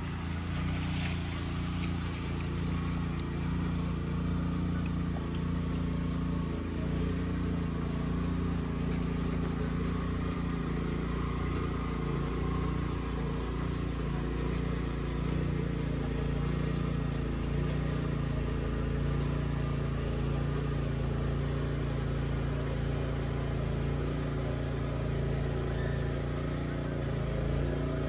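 A steady low motor-like hum with several even low tones, unchanging throughout, and a few faint clicks about a second in.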